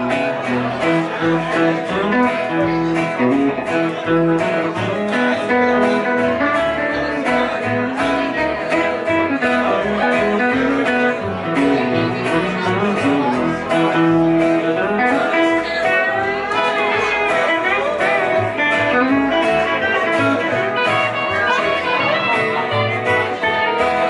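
Live band music with a guitar to the fore, playing steadily.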